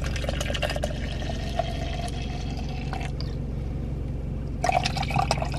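Water pouring from a plastic bottle into a plastic shaker cup for a protein shake, the pitch of the stream rising slightly as the cup fills. The pour stops about three seconds in and starts again near the end, over a steady low hum.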